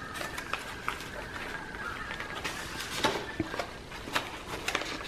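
Paper pages of a thick handmade journal being turned and handled, with scattered light rustles and small taps of card and paper. A faint steady high tone sits in the background through the first half.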